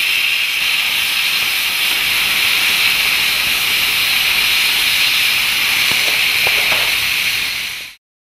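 Oxy-fuel cutting torch hissing steadily, a loud, high, even hiss with a few faint crackles near the end, fading out quickly just before the end.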